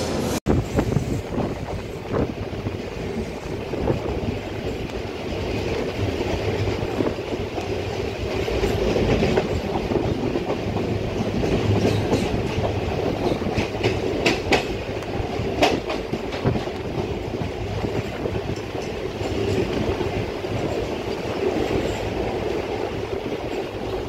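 Indian Railways LHB passenger coaches passing close at speed, their wheels rumbling and clattering over the rail joints, with sharp clicks now and then. The train's last coach, a luggage, brake and generator car, goes by near the end.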